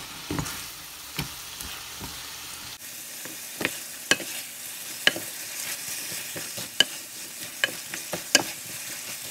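Diced chicken breast sizzling as it sears in hot oil in a frying pan, stirred with a wooden spoon that knocks sharply against the pan at irregular moments, about once or twice a second.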